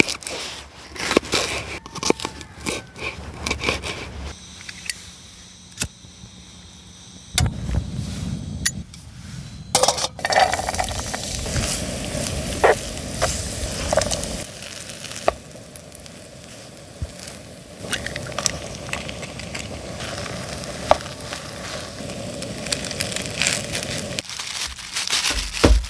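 A knife cutting carrot on a bamboo cutting board, with sharp taps early on. Then diced sausage and carrot sizzling in a frying pan, stirred with a spatula that scrapes and clicks against the pan. A dull low thudding comes about eight seconds in.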